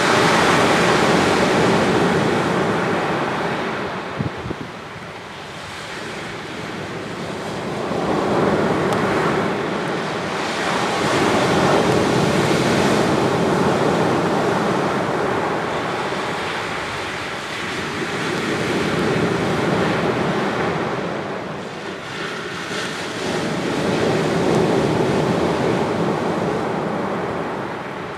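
Ocean waves breaking and washing up a sandy beach in a slightly rough sea, the surf swelling and falling away in about four surges.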